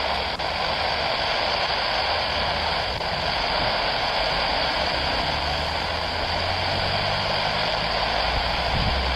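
Jet engines of a twin-engine widebody airliner running at taxi power: a steady rushing noise with a low rumble underneath.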